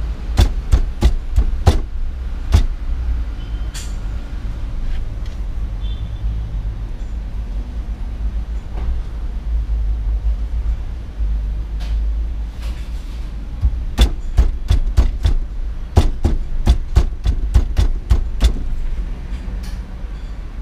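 Sharp clicks and knocks of hand tools and metal parts as a steering wheel and its hub adapter are worked on, in two irregular flurries: one at the start and one in the last third. A steady low rumble runs underneath.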